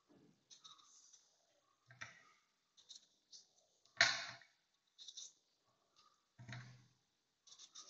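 Kitchen knife cutting through a raw potato, with chunks dropping into a plastic chopper bowl: several short knocks and clicks, the loudest about four seconds in.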